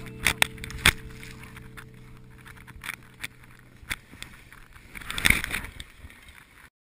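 A skier's crash in snow: sharp knocks and scrapes as the body and camera tumble, and a louder rush of snow about five seconds in. A held music chord fades out over the first few seconds, and everything cuts off just before the end.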